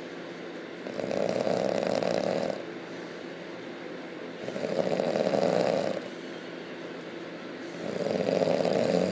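A sleeping person snoring loudly: three long snores about three and a half seconds apart, each lasting under two seconds, with quiet breathing gaps between.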